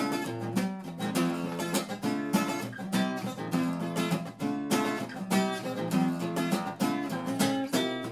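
Solo guitar playing the opening riff of a song: a quick run of picked notes and strums that repeats in a steady rhythmic pattern.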